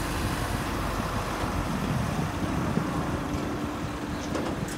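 Steady low rumble of heavy machinery running, with a steady hum from about a second and a half in until shortly before the end.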